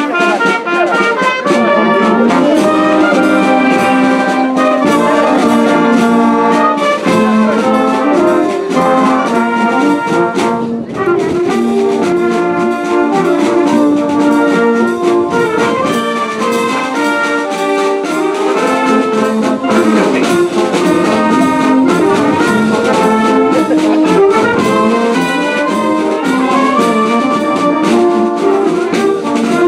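Wind band of brass and woodwinds (saxophones, clarinets, trumpets, tubas) playing a tune together, with a brief break in the sound about eleven seconds in.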